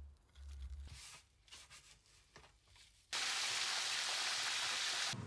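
Hot oil sizzling steadily as a whole pig's head deep-fries in a wok. It starts suddenly about three seconds in, after a few seconds of faint low hum with a few soft ticks.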